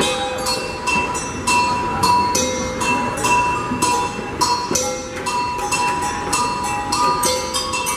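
A hand-drum ensemble of djembes playing music with a steady, even beat, a few strokes a second. Jingling percussion and a pitched melody line run over the drums.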